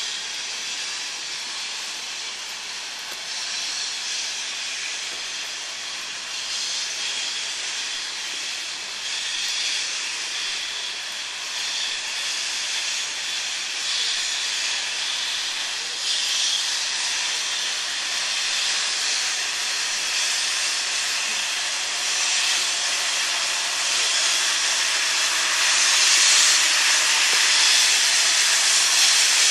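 Steam locomotive starting slowly away with its cylinder drain cocks open: a steady hiss of steam with slow exhaust beats about every couple of seconds, growing louder as it draws nearer.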